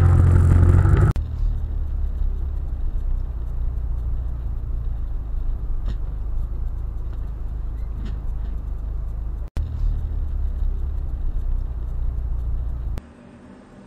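Steady low rumble of a car's engine and tyres, recorded by a dashcam inside the cabin. It is broken by two short dropouts where the footage cuts. The first second holds a louder engine hum, and the sound drops to faint road noise near the end.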